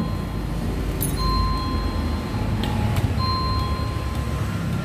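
Electric bell ringing twice, a steady two-tone ring about two seconds apart, as someone keeps pressing its button. A few light metal clinks and a low steady rumble sound underneath.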